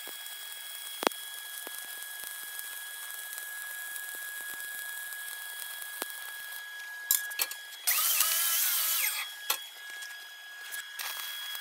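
Stick-welding arc crackling and hissing steadily as a fill pass is run on a test plate. The arc stops about seven seconds in, followed by a few sharp clicks and a louder rasping noise of about a second.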